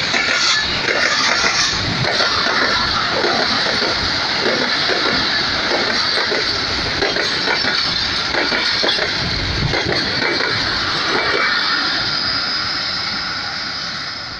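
Express passenger train coaches passing close at speed: steel wheels clattering over the rail joints in a dense run of knocks over a steady rumble and high hiss. The sound fades over the last few seconds as the end of the train draws away.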